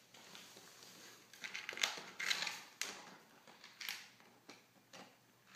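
A Great Pyrenees gnawing on a giant rawhide bone: irregular crunching bites of teeth on dry rawhide, loudest in a cluster about two seconds in, then a few separate crunches.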